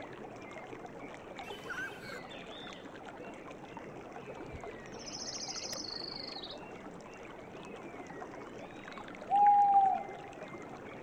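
Wild nature ambience: a steady wash of background noise with scattered bird chirps, a rapid trilling high call about five seconds in, and a louder single held call about nine seconds in.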